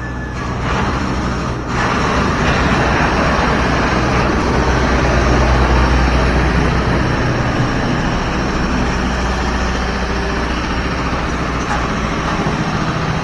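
A truck's engine running steadily. It gets louder about two seconds in, is strongest around six seconds, then eases off a little.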